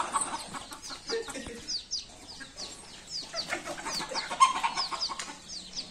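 Chickens clucking, with many short, high peeps that fall in pitch throughout and a louder cluck about four seconds in.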